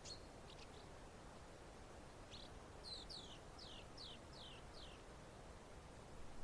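Quiet field ambience: a faint, even background wash with a small songbird calling, a few short chirps at the start, then a quick series of about six down-slurred notes, each falling in pitch, around the middle.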